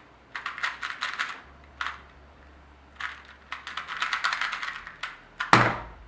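Small 2x2 Rubik's cube being turned fast in a speedsolve: quick runs of plastic clicking with short pauses between them, then one louder sharp knock near the end.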